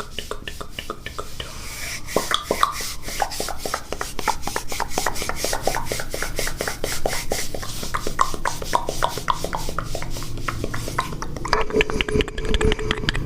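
Close-miked ASMR mouth sounds: rapid wet tongue clicks and taps, many a second in a steady stream. Near the end a low steady tone joins them.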